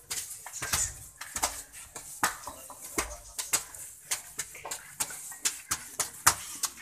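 Fired clay bricks knocking and clacking against each other in a sack sling as it is carried up concrete stairs: a run of sharp, irregular knocks, a few a second.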